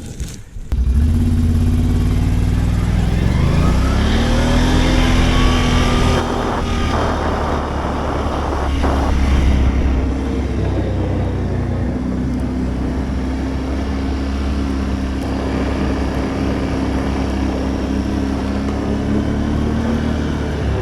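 Can-Am 570 ATV engine, loud from about a second in. Its revs rise over the next couple of seconds as it pulls away, then it runs steadily under way.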